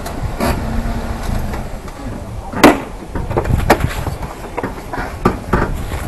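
Low rumble with a sharp knock about two and a half seconds in, a second knock a second later, and a few lighter clicks near the end.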